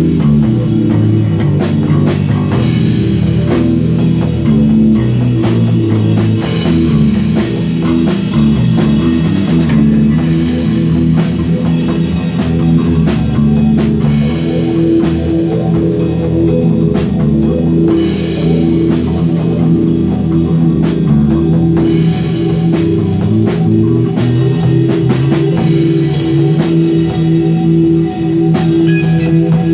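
Rock band playing live: electric bass guitar and a guitar over a drum kit keeping a steady beat with cymbals, loud and continuous.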